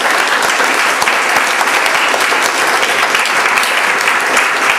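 A room full of seated students applauding: steady clapping of many hands.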